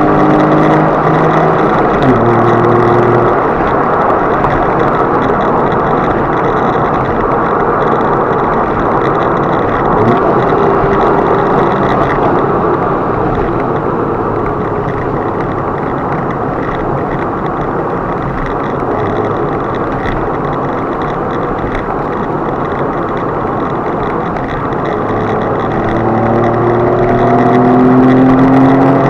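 Car driving at speed, heard from inside the cabin: steady engine and road noise. The engine note drops about two seconds in and rises again near the end as the engine revs up.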